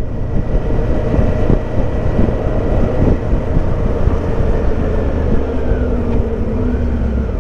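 Suzuki V-Strom motorcycle under way: the V-twin engine's steady low rumble mixed with wind and road noise on the rider's microphone.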